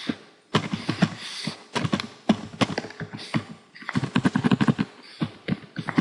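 Typing on a computer keyboard: rapid keystrokes in several quick runs, with short pauses between them.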